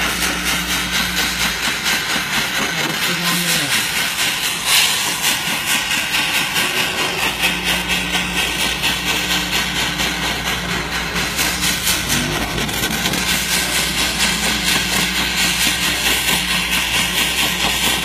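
Jeweller's gas torch flame hissing steadily with a fast flutter as it melts a small piece of gold in a crucible, swelling briefly louder about five seconds in.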